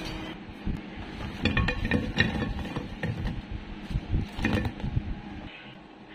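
Kitchenware clattering as fried patties are tipped out of a plastic colander onto a plate: light knocks and clinks in two clusters, stopping about half a second before the end.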